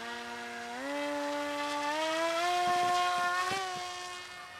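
Electric motor and propeller of a foam delta-wing RC plane whining under throttle, its pitch stepping up about a second in and again about two seconds in, then dropping a little near the end.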